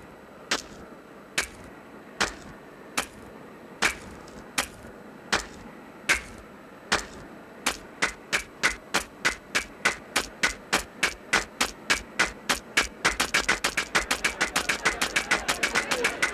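Sharp clicks of bricks being set down one by one as a wall goes up. They come about one a second at first, speed up after about seven seconds, and turn into a rapid clatter near the end.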